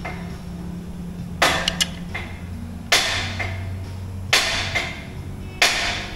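Four sharp hits, evenly spaced about a second and a half apart, each with a short ringing tail, over a low steady hum.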